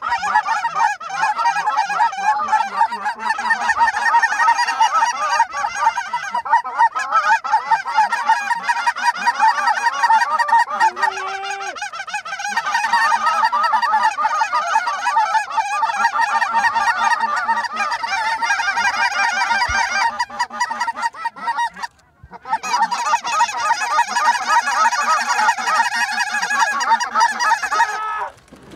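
A large flock of Canada geese calling overhead, a dense, continuous chorus of many overlapping honks. It breaks off for a moment about two-thirds of the way through, then carries on.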